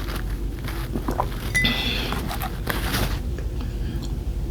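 Household clatter of small clicks and knocks, like cutlery and dishes, with one short ringing clink about a second and a half in, over a steady low hum.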